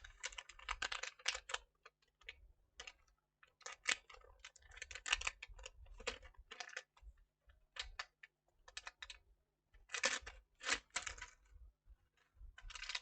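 Irregular runs of small clicks and scratching as hands and tools work on a laptop's plastic casing and hinge, in uneven bursts with short gaps.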